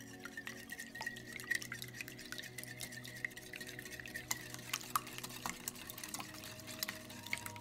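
Wire whisk beating raw eggs in a glass bowl: fast, irregular clicking and tapping of the wires against the glass as the eggs are whisked into a smooth mix.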